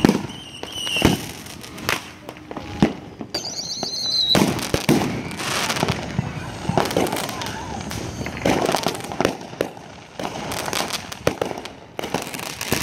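Fireworks going off in a rapid series of sharp bangs and crackles, with a high whistle about three seconds in.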